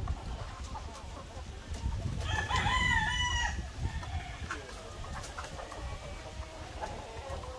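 A rooster crows once, a pitched call of about a second and a half starting a little over two seconds in. Hens cluck more quietly around it.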